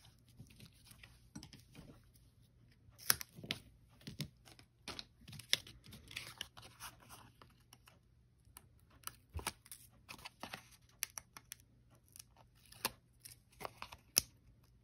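Double-sided foam tape being torn into strips, peeled and pressed onto cardstock by hand. Irregular small tearing and rustling sounds, with a few sharper snaps scattered throughout.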